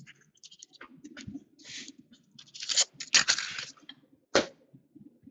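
Trading cards and their card-stock packaging being handled: rustling, sliding and light clicks. The loudest rustle is near the middle, and a single sharp tap comes near the end.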